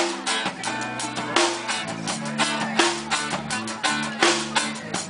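Band music: guitars over a drum kit keeping a steady beat, with no singing.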